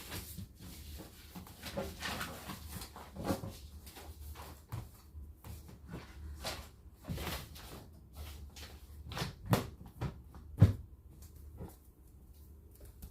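Household belongings being moved and handled while a room is tidied: irregular knocks, rustling and light clatter, with two sharper knocks about a second apart near the end.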